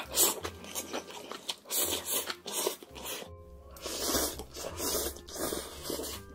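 A person slurping up mouthfuls of noodles in a run of loud, hissing slurps, with background music underneath.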